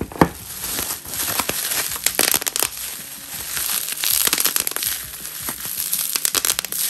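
Plastic bubble wrap being crumpled and scrunched in the hands, a dense run of crinkling and crackling with many sharp clicks. A single louder knock comes just after the start.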